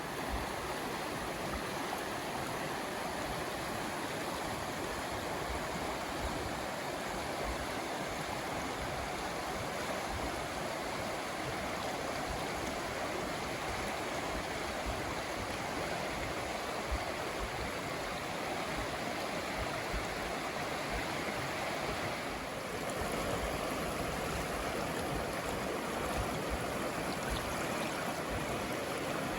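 A river running with late-winter snowmelt, a steady rushing and gurgling of moving water. It grows a little louder about three-quarters of the way through.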